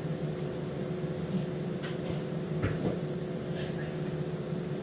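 Steady machine hum, like an air conditioner or appliance, with a few light clicks and taps scattered through it, in keeping with cutlery and dishes handled at a meal.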